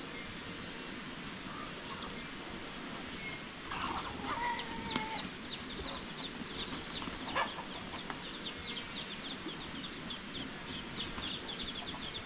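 Chickens clucking over a steady background hiss, followed by a run of quick, short, high chirps that fall in pitch and repeat several times a second through the second half.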